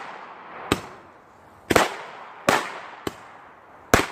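Fireworks going off: five sharp bangs at uneven gaps, each dying away quickly, the first about two-thirds of a second in and the last near the end.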